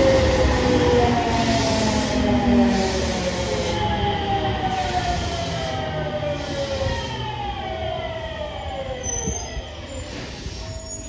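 JR Shikoku 7000 series electric train braking into a station. The whine of its inverter and traction motors glides down in pitch in several overlapping steps and grows quieter as the train slows to a stop.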